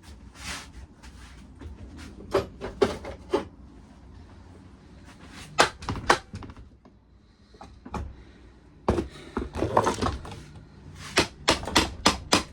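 Hand tools and metal engine parts knocking and clinking during the teardown of a small lawnmower engine: scattered sharp knocks, a dense clatter about nine seconds in, and a quick run of clicks near the end.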